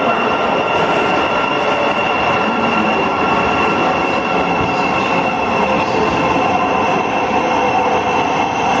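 Class 700 (Siemens Desiro City) electric multiple unit pulling into a covered station platform and slowing along it, its running noise steady with a high, unbroken squeal over it.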